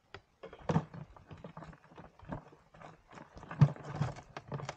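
Irregular plastic clicks and knocks as a toilet seat with corner brackets is set and pressed onto a plastic five-gallon bucket in a test fit, with one louder knock a little past halfway.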